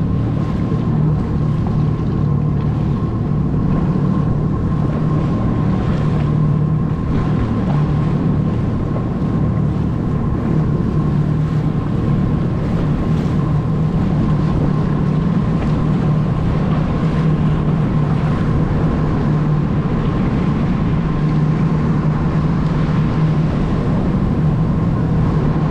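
Jet ski engine running at a steady speed, with wind noise on the microphone.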